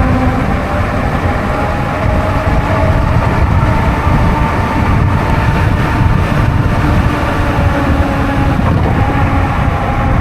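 An e-bike riding along a wet road: wind rumbling on the microphone, with tyre hiss and a steady motor whine that drifts slightly in pitch.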